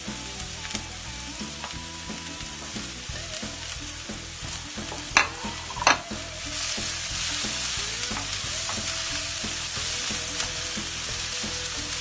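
Diced bell peppers and onion sizzling in hot oil in a wok, stirred and scraped with a wooden spatula. There are two sharp knocks about five and six seconds in, and the sizzling grows louder from about halfway through.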